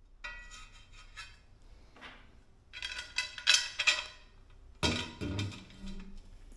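Aluminium extrusion profiles clinking and clattering against each other as they are handled and fitted together, with a bright metallic ring after the hits. The clatter is loudest in the middle, and a sharper knock with a dull thud comes about five seconds in.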